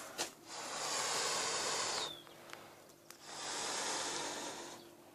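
Breathing through a gas mask respirator: two long hissing breaths, each about a second and a half, with a pause between.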